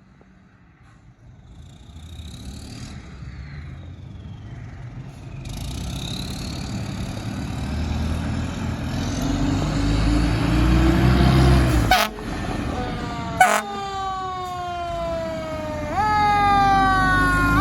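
Fire engine pulling out on a call: its engine grows louder from a couple of seconds in as its siren winds up, two short loud air-horn blasts come about two-thirds of the way through, and then siren tones sweep downward in pitch over and over.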